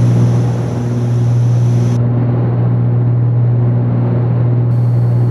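Cessna 310Q's twin piston engines and propellers droning steadily at a constant pitch, as heard inside the cabin in flight.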